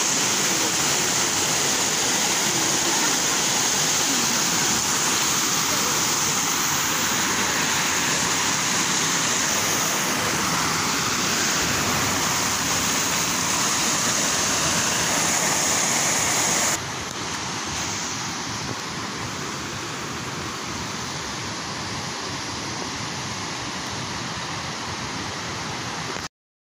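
Fast river water rushing over rocks in rapids, a steady, unbroken rush. About seventeen seconds in it cuts to a quieter but still steady rush, and it breaks off briefly just before the end.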